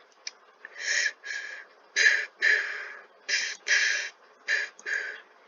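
A person breathing close to the microphone: four pairs of short, hissy breaths, about a second apart.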